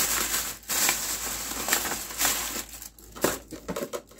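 Clear plastic bag crinkling and rustling as it is handled, in an irregular run of crackles.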